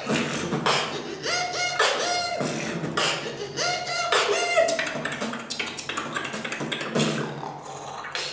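A man beatboxing solo: a fast rhythm of mouth-made kick, snare and hi-hat sounds, with short held vocal tones woven between the hits. It gets quieter in the last second or so.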